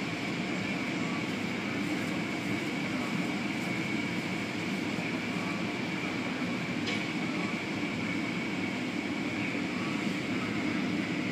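Automatic car wash running: a spinning cloth brush and water spray make a steady rushing wash with a constant high whine over it. There is a faint click about seven seconds in.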